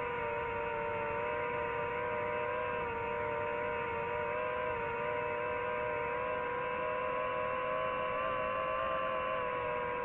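DJI FPV drone's motors and propellers whining steadily in flight, as picked up aboard the drone, several tones drifting slightly up and down in pitch as the throttle changes.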